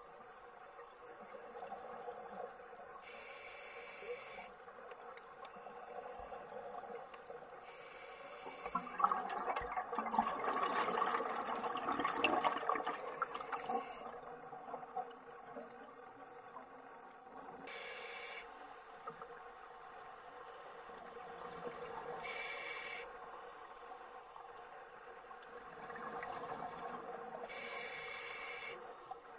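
Scuba diver breathing through a regulator underwater: a short hiss on each inhale, about every four to five seconds. Exhaled bubbles gurgle between breaths, loudest and longest about nine to thirteen seconds in.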